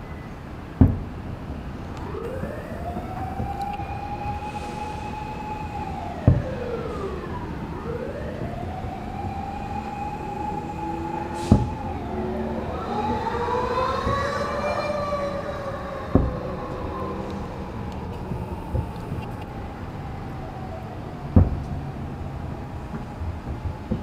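Distant firework shells bursting with sharp booms about every five seconds. Over them, a wailing siren rises, holds and falls in pitch several times, with a second wail overlapping it near the middle.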